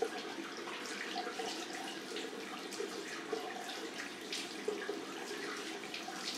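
Water running from a tap into a sink, with light irregular splashing.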